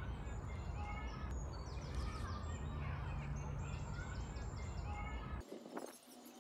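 Outdoor ambience of several songbirds chirping and singing in short, quick falling phrases over a steady low hum. The hum cuts out about five seconds in, leaving quieter background with a few faint ticks.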